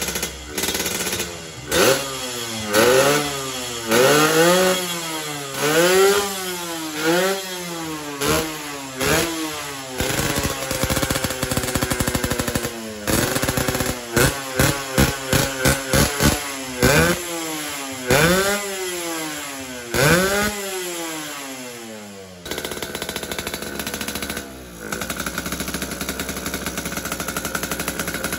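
Yamaha RX King two-stroke single-cylinder motorcycle engine on a freshly fitted PWK 33 carburettor, revved in a long string of throttle blips, each a rising and falling wail, with a burst of quick short blips midway. It then settles to a steady idle near the end. The mechanic finds the carburettor too big, making the engine run rich.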